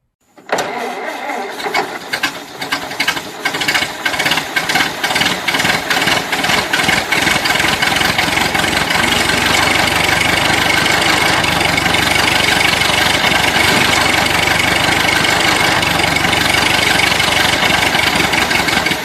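An engine starting and then running, its rapid pulsing turning into a dense, steady sound after about eight seconds.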